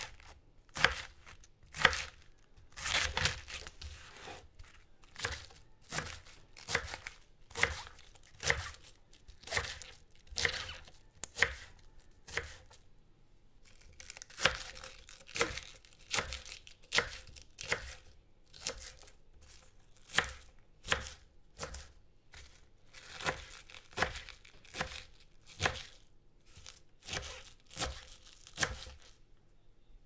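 Cabbage being chopped with a kitchen knife on a wooden cutting board: a steady series of crisp cuts, about one a second, each a crunch through the leaves ending in a knock on the board, with some quicker runs of cuts.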